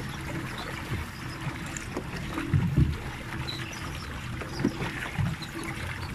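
Water bike on a lake: a low rumble of water and wind, with several dull knocks from partway through.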